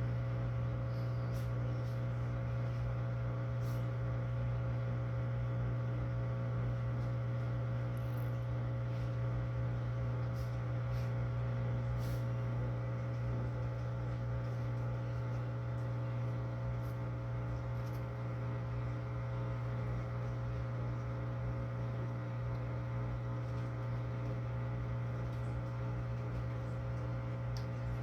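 LG Inverter Turbo Drum washing machine running with a steady low hum and a few faint ticks, failing to go into spin, which the technician puts down to the water-level pressure switch not signalling that the drum is empty.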